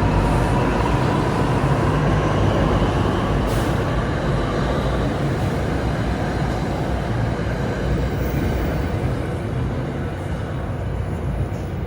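NJ Transit Arrow III electric multiple-unit train running on the station tracks: a steady rail rumble that slowly fades.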